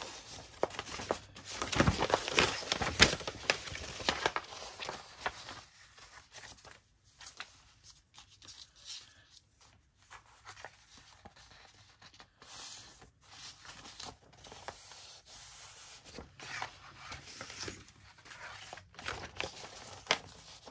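Sheets of paper being handled and rustled, loudest in a dense burst of rustling about two to four seconds in, then lighter intermittent rustles and taps.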